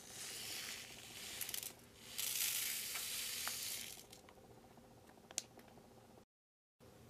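Tiny sugar sprinkles pouring from a packet into a plastic tray compartment: a fine, hissing pour in two runs, the second starting about two seconds in and louder, stopping about four seconds in. A single small click follows near the end.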